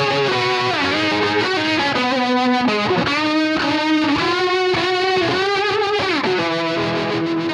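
Les Paul electric guitar played with distortion: a lead line of sustained notes, with string bends about three seconds in and again near six seconds, and wavering vibrato on the held notes in between.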